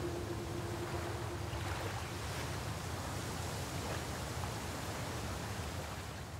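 Ocean surf washing on a beach, a steady rushing noise, while the last held note of the music dies away in the first couple of seconds; the whole sound fades down near the end.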